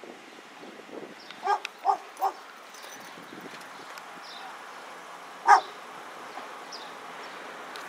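A dog barking: three quick barks, then a few seconds later one single, louder bark.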